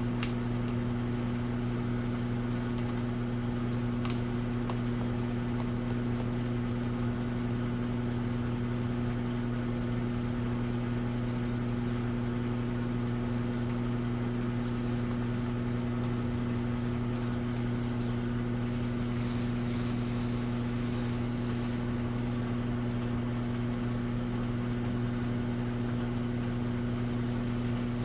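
Washing machine running with a steady low hum that holds the same pitch and level throughout.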